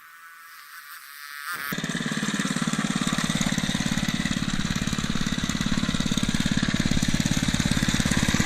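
Small single-cylinder engine of a 2.5-horsepower Monster Moto minibike running steadily, its firing pulses coming in suddenly about one and a half seconds in after a quieter start.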